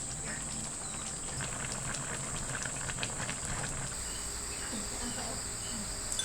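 Insects droning steadily at a high pitch, with faint scattered clicks. From about four seconds in, a short high chirp repeats every half second or so.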